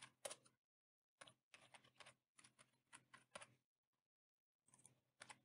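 Faint keystrokes on a computer keyboard: scattered clicks in short runs, with a pause of about a second after the middle.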